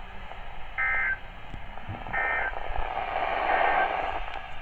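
Three short bursts of Emergency Alert System (SAME) digital data tones from a NOAA Weather Radio broadcast, a little over a second apart, over radio hiss.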